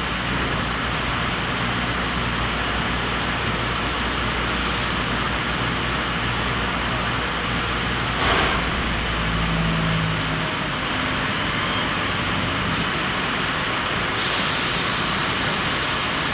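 Steady running noise of dyehouse textile machinery, with one sharp click about eight seconds in.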